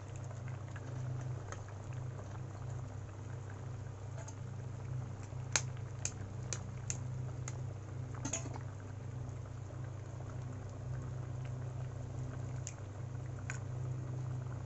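Spiced potato curry gravy bubbling at a boil in a wok, with raw eggs poaching in it, over a steady low hum. Several short sharp clicks are scattered through the middle and near the end.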